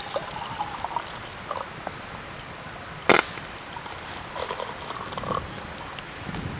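Hot tea poured from a kettle into a stainless steel camping mug, then a single sharp knock about three seconds in, then tea poured into a ceramic mug.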